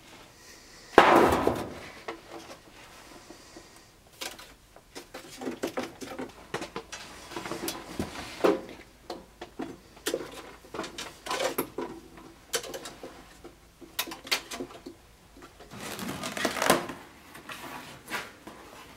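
Workshop handling noises: a sudden loud knock about a second in, then a long string of light knocks and clicks of things being moved, and near the end a rustling scrape of a cardboard box being opened.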